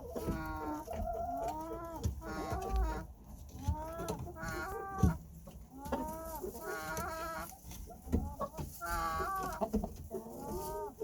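A chicken snoring: short pitched, throaty calls repeated over and over.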